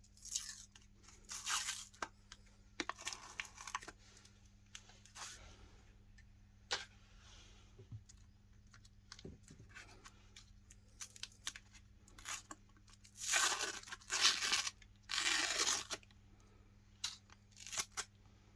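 Crisp ice cream cones crunching and cracking as they are ground in a meat grinder: several bursts of crackling with scattered sharp cracks between them, the loudest and longest bursts about two-thirds of the way through, over a steady low hum.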